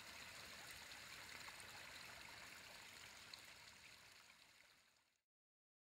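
Near silence: a faint steady hiss that fades away to dead silence about five seconds in.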